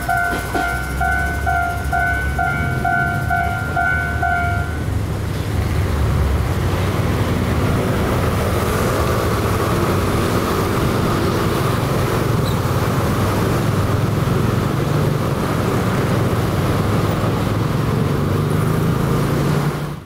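Level-crossing warning bell ringing about twice a second over the low rumble of a passing train, stopping about five seconds in. Then a crowd of motor scooters runs and pulls away across the tracks.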